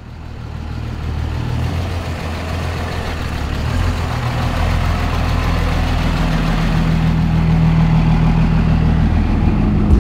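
Dodge Ram pickup engine running steadily, fading in at the start, its low note stepping up about six seconds in.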